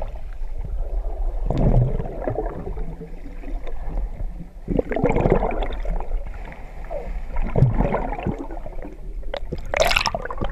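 Muffled underwater sound of a person swimming, picked up by a submerged camera: water rushing and gurgling in irregular surges over a steady low rumble, with a brighter rush near the end.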